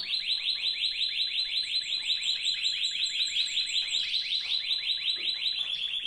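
Spanish timbrado canary singing a long, unbroken trill of quickly repeated high notes, about eight a second.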